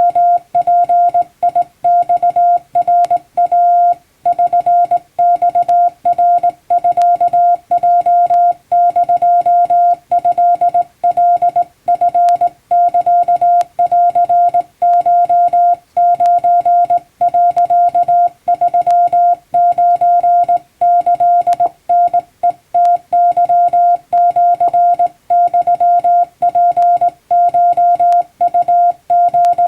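Japanese wabun Morse code sent by hand key: one steady mid-pitched tone keyed on and off in dots and dashes, with brief silences between characters.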